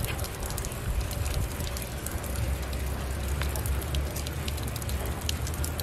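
Water running from an open tap and splashing onto rock: a steady hiss with scattered tiny crackles, over a low, uneven rumble.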